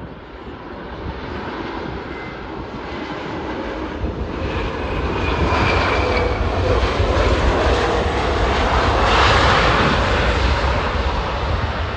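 Jet airliner passing, its engine noise with a faint whine building steadily and peaking about nine seconds in.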